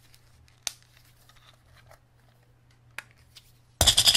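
Handling noise from a Sony camera being turned over in the hands: two small sharp clicks, then a loud scraping rustle near the end.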